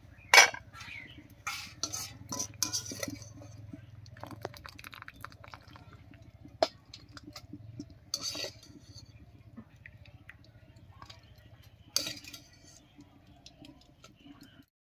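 Metal kitchenware clinking and scraping: a wire strainer scooping boiled taro flowers out of a wok and knocking against a stainless steel colander. A sharp clank about half a second in is the loudest, with a run of clinks a couple of seconds in and single knocks later on.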